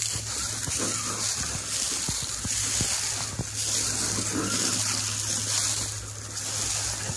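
Dry grass and brush rustling and crackling with many small snaps, under a steady wash of wind noise on the microphone.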